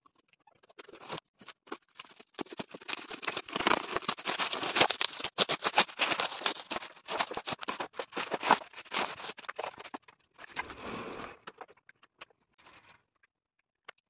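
Packaging being torn open and handled: cardboard box and plastic wrapping around a baby walker crinkling and rustling densely for several seconds, then a brief scrape and a few scattered rustles near the end.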